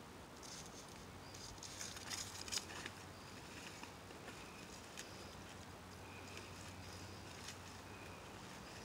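Faint scraping and rustling of a hammock tree strap being wrapped around a tree trunk, with a few small clicks.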